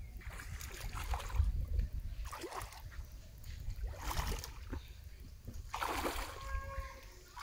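River water splashing and sloshing around the legs of people wading in, in three short spells of splashing over a steady low rumble.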